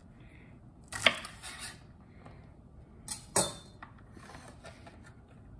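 Fresh green beans being trimmed by hand on a wooden cutting board: two short, sharp sounds about two seconds apart, each trailing off briefly. The first is slightly louder.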